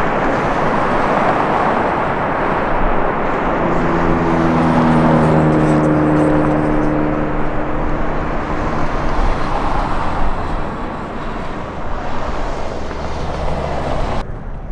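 F-35B's jet engine and shaft-driven lift fan roaring in a hover and vertical landing. Steady droning notes stand out in the roar for several seconds in the middle, and the sound drops away suddenly near the end.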